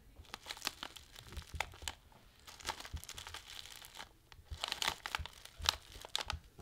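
Material being crumpled and scrunched by hand: a dense, irregular run of small crackles, thickest about three-quarters of the way through.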